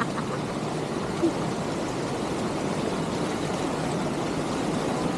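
Steady rushing noise.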